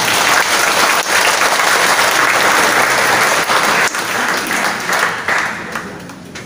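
Audience applauding. The clapping starts all at once and dies away over the last couple of seconds.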